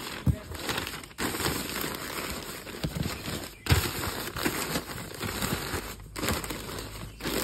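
Newspaper rustling and crinkling as hands spread and press sheets into a cardboard box, with a few dull knocks of hands against the box.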